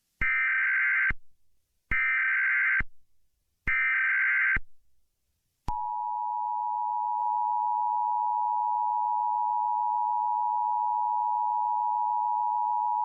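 Emergency Alert System SAME header: three short bursts of screeching digital data tones, each just under a second, then the steady two-tone EAS attention signal (853 and 960 Hz) starting a little before halfway and holding on. It announces an Amber Alert, a child abduction emergency.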